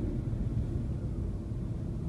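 Low, steady rumble of a Mercedes-Benz car driving, heard from inside the cabin: engine and tyre noise.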